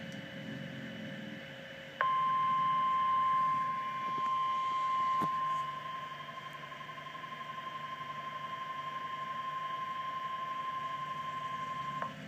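Emergency Alert System attention signal for a severe thunderstorm warning: a single steady high-pitched alarm tone that starts suddenly about two seconds in, holds for about ten seconds, and cuts off just before the end. It is the tone that announces an incoming National Weather Service warning message.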